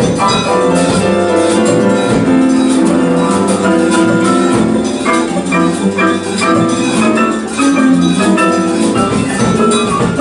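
A band playing music live: a busy stream of quick notes over held chords, steady in loudness.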